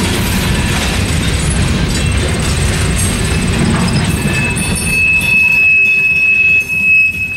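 Freight cars rolling past, a boxcar and a covered hopper, with a heavy rumble and clatter of steel wheels on the rails that thins out as the last car clears about four seconds in. A steady high-pitched wheel squeal then carries on as the train moves away.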